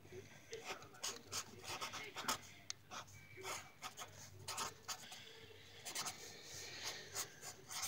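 Writing by hand on paper: faint, short, irregular scratching strokes.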